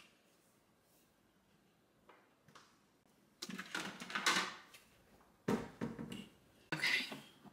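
Handling sounds of a bowl of salad being put away: a few knocks and scrapes after a short silence, with the sharpest knock about five and a half seconds in.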